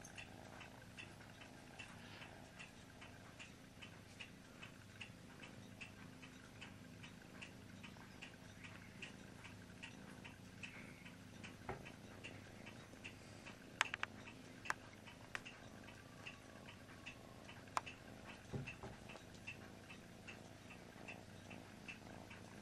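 Faint, regular ticking, nearly three ticks a second, with a few louder sharp clicks past the middle.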